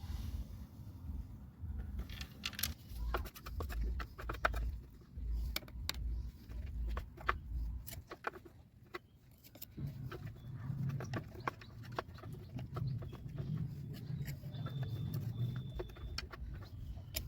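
Many small clicks, taps and knocks from a mixer grinder's plastic and metal parts being handled during cleaning. The first half has a low rumble underneath, and from about ten seconds in there is a rougher rubbing sound for several seconds, like scrubbing.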